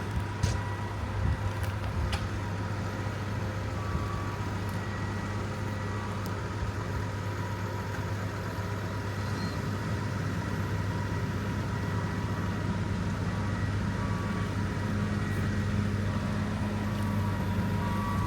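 Case IH Axial-Flow 9260 combine harvester running steadily while harvesting canola: an even, low machine drone with a few light clicks in the first couple of seconds.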